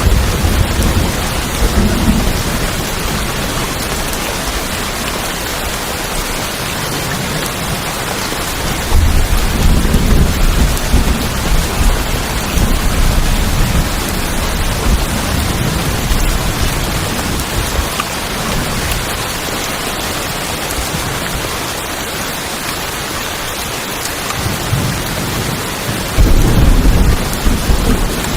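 Steady heavy rain falling on tin roofs, an even hiss, with low rumbles of thunder near the start, about a third of the way in and again near the end.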